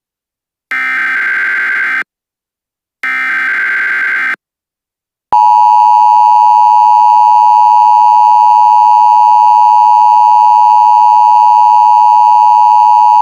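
Emergency alert broadcast tones: two short buzzing bursts of SAME header data about a second apart, then, about five seconds in, a loud steady attention tone starts and holds without a break.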